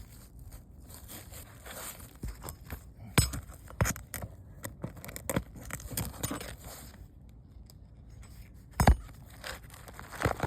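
Scrapes, clicks and sharp knocks of roofing work on shingles: a roofer prying shingles loose and pulling their nails. The loudest knocks come about three seconds in and near the end.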